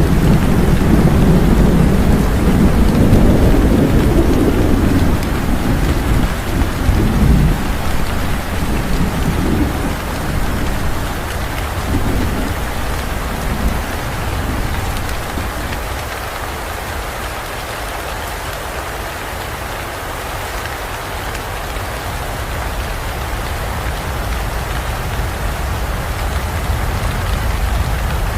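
Steady heavy rain with a long, low roll of thunder in the first third that fades out after about ten seconds, leaving the rain alone.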